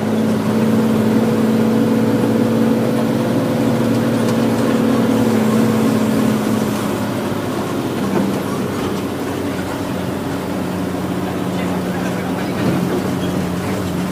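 A vehicle's engine drones steadily, heard from inside the cabin on a rough dirt road. Its note drops a little about halfway through and then holds steady.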